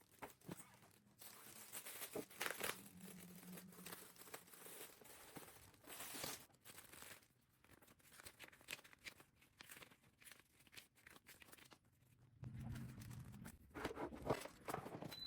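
Faint handling noises: packaging tearing and crinkling, with scattered clicks and knocks.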